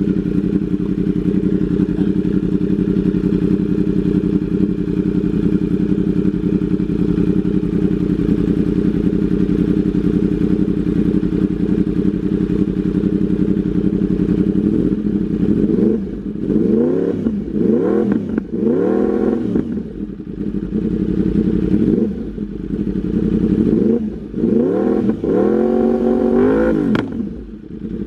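Yamaha R1M's crossplane inline-four engine with an Arrow exhaust idling steadily, then given two runs of quick throttle blips, each rev rising and falling back to idle.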